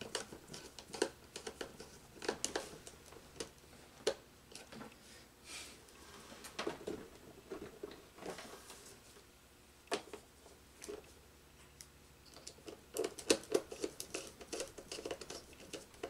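Small clicks, taps and rustles of a screwdriver working screw terminals and of stiff control wires being handled on a contactor and terminal block, with a quicker run of clicks near the end.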